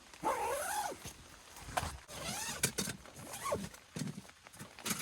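A zipper pulled in several quick strokes, its buzz rising and falling in pitch with each pull, about four or five times.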